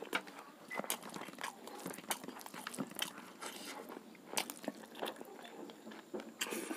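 Close-miked chewing and mouth sounds of a man eating rice and pork with his fingers: a busy, uneven run of wet smacks and clicks with no pauses.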